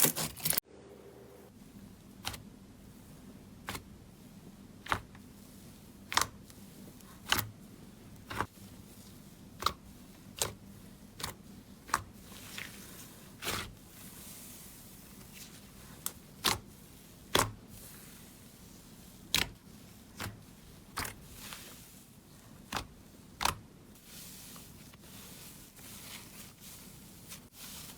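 Slime being pressed and squeezed, giving sharp, separate popping clicks about once a second at uneven intervals, over a faint steady low hum.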